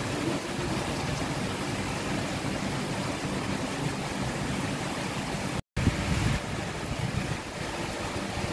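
Steady rain falling, an even rushing hiss. The sound cuts out completely for a split second about five and a half seconds in.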